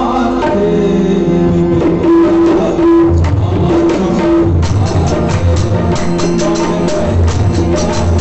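Tabla accompaniment to a Hindi devotional song, over a held melody line. Deep bass-drum strokes come in about three seconds in. A little later, quick, crisp treble-drum strokes join in a steady rhythm.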